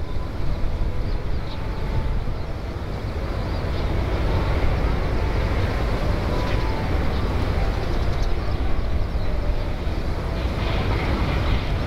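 Steady low rumble of distant jet aircraft at the airport, mixed with wind on the microphone, heaviest in the bass and swelling slightly about four seconds in.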